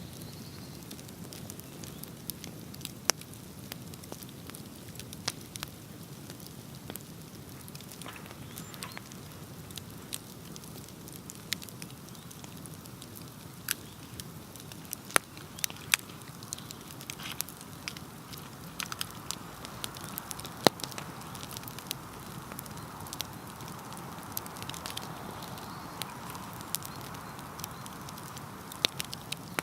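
Wood bonfire crackling: many sharp, irregular pops over a steady low rush of burning flames, with a soft hiss coming up about halfway through.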